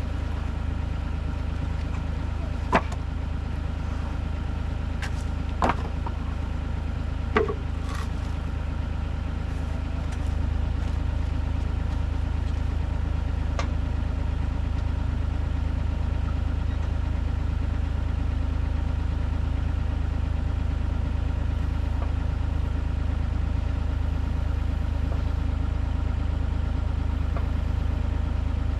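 Bobcat E50 mini excavator's diesel engine idling steadily while it holds the trailer up, getting a little louder about ten seconds in. Three sharp knocks in the first eight seconds as support blocks are pulled out from under the trailer.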